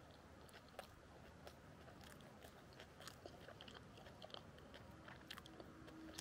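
Faint chewing of a sandwich, with scattered small crisp clicks of biting and crunching.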